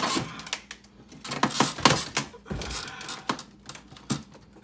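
Plastic freezer panels and a wire harness being handled: scattered clicks, knocks and rustling.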